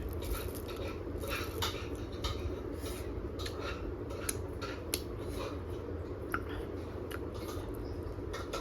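Scattered small clicks and clinks of eating from a plate, over a steady low hum.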